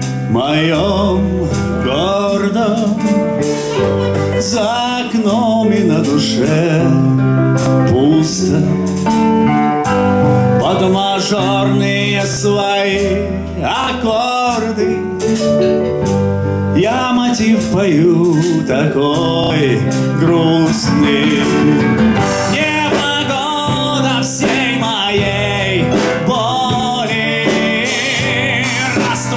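Live band music: a hollow-body electric guitar, a drum kit and a keyboard playing together, with a melody line that slides and bends in pitch over the band.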